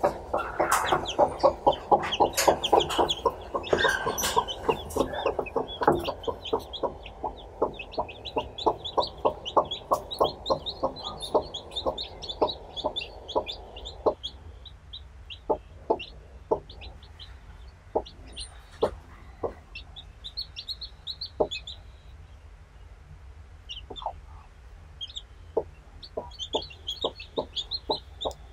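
A mother hen clucking in a quick run of short clucks, about three a second, that thins to occasional single clucks about halfway through. Her newly hatched chicks are peeping in high-pitched notes over the top.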